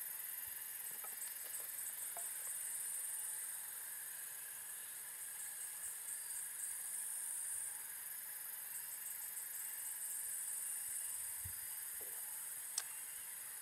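Steady high-pitched chirring of insects, with a pulsing texture, and a single sharp click near the end.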